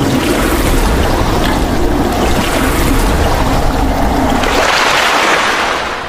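Rushing, splashing water sound effect for an animated logo reveal, swelling near the end and then starting to fade away.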